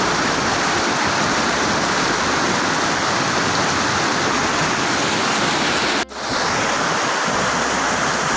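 Rocky mountain stream rushing steadily over boulders in white-water rapids, with a momentary dropout about six seconds in.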